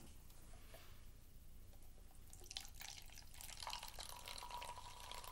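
Pepsi poured from an aluminium can into a small glass, starting about two seconds in: splashing and fizzing of the carbonated cola, with a steady tone rising out of it as the glass fills.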